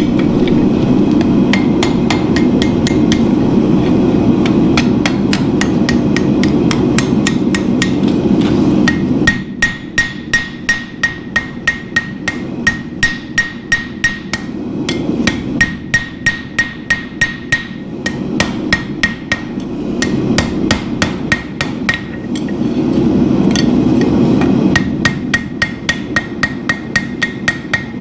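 Blacksmith's hammer striking steel on an anvil in a steady rhythm, about three blows a second, each blow ringing. A steady low rumble comes and goes underneath the hammering.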